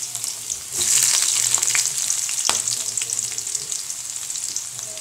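Chopped shallots, garlic and curry leaves sizzling and crackling in hot oil in a metal kadai, growing louder about a second in.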